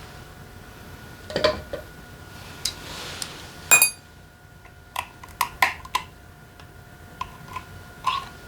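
Metal tools and engine parts clinking and knocking during motorcycle engine disassembly: a string of separate sharp clicks, with one louder ringing metallic clink about halfway through.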